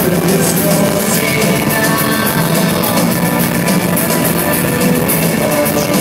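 Live rock band playing loud with electric guitar and drum kit, a steady driving beat, heard from within the crowd.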